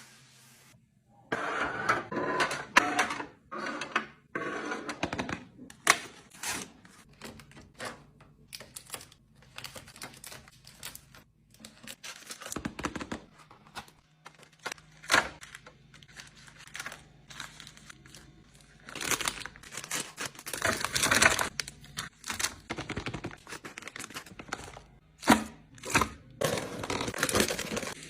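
Food packages and containers being handled and put away: irregular clicks and knocks with rustling and crinkling of packaging.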